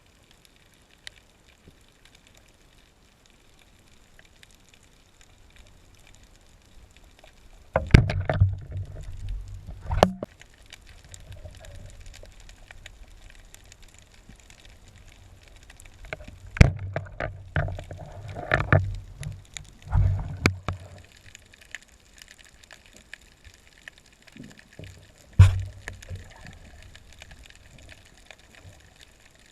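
Water sloshing and gurgling against the camera housing, with occasional sharp knocks and clicks in a few irregular spells.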